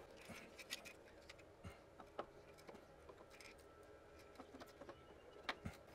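Near silence with faint, scattered light clicks: a metal timing chain and camshaft adjustment gear being handled and fitted by hand on a BMW N62 V8.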